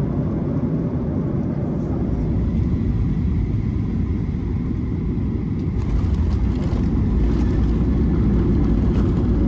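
Steady roar of a jet airliner heard from inside the cabin, mostly deep rumble and hiss. It grows louder about halfway through as the plane rolls out on the runway after touchdown.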